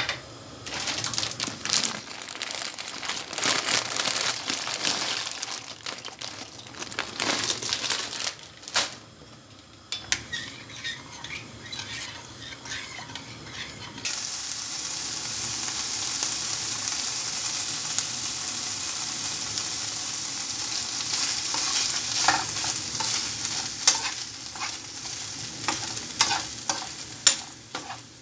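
A spoon stirring in a steel pot of pasta, with irregular scrapes and knocks against the pot. About halfway through, a steady sizzle takes over as chicken pieces fry in a nonstick pan, stirred with a spoon that scrapes the pan now and then.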